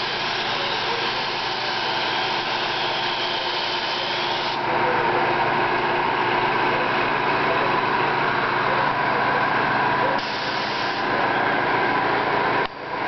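Compressed-air paint spray gun hissing steadily while spraying a panel, over a steady mechanical hum. The hiss grows louder about four and a half seconds in and cuts out briefly just before the end.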